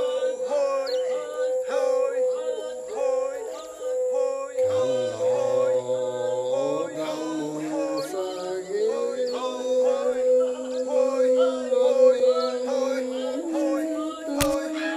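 Voices singing together without instruments: a long steady held note runs beneath quicker sung syllables, with lower held notes joining partway through. A single sharp knock near the end.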